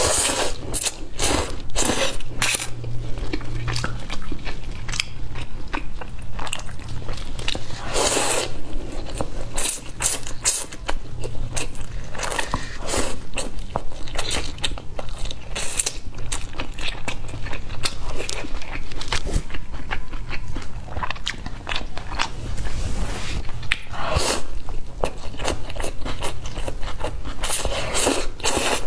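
Close-miked eating of black pepper spaghetti with chopsticks: repeated slurps of noodle strands and wet chewing mouth sounds, with a few longer slurps.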